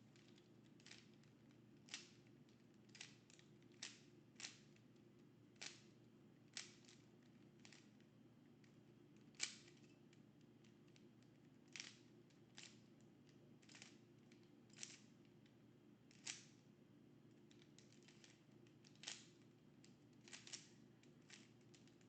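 Rubik's cube being turned by hand: faint, irregular clicks of the cube's layers turning, roughly one a second.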